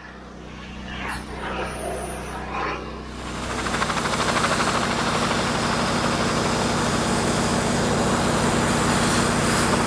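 Three-cylinder diesel engine of a John Deere 755 compact tractor running steadily. It gets louder about three seconds in and stays loud and even.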